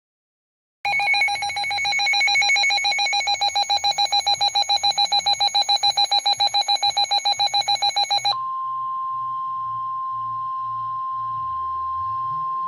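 A rapidly pulsing electronic alert alarm, about eight pulses a second and ringing like a telephone bell, sounds for about seven seconds. It then cuts over abruptly to the NOAA Weather Radio's single steady warning alarm tone, the long held beep that signals a warning broadcast is about to follow.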